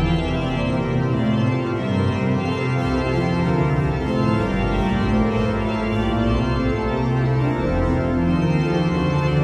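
Pipe organ music: slow, sustained chords that change every second or two over low bass notes.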